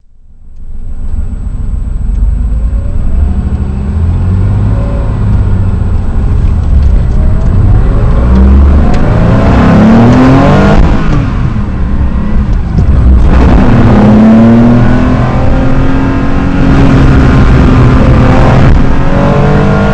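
Classic Porsche 911's air-cooled flat-six heard from inside the cabin, accelerating hard through the gears. The engine note climbs steeply about ten seconds in, drops at a gear change, then climbs again a couple of seconds later and holds high.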